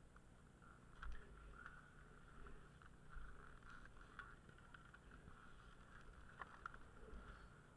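Near silence: faint, muffled sliding of skis on snow, with a few light knocks.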